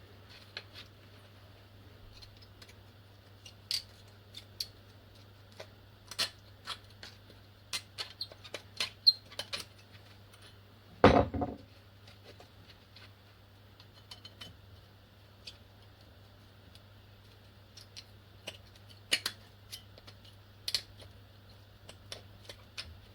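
Scattered light metallic clicks and taps of a small flat screwdriver and metal brake parts being handled while rubber boots are prised off, with one louder knock about eleven seconds in, over a steady low hum.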